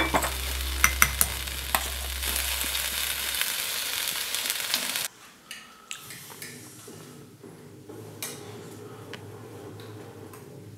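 A spoon stirs a drink in a glass, clinking sharply a few times over a steady hiss, for about five seconds. Then it turns much quieter, with a few light clinks of a fork on a plate.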